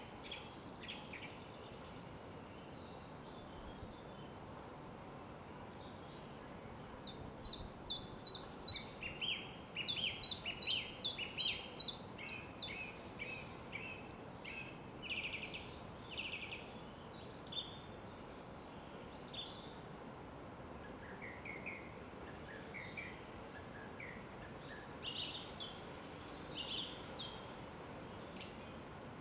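Woodland songbirds calling and singing over a faint steady background hiss. About a quarter of the way in, one bird gives a loud fast run of repeated notes, about three a second, alternating high and lower pitches for roughly five seconds. Scattered shorter calls follow.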